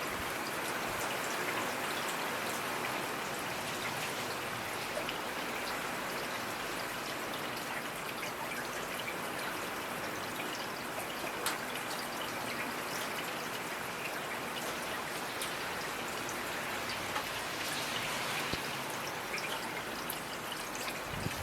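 Steady rainfall: a continuous hiss of rain with scattered individual drops ticking on a surface.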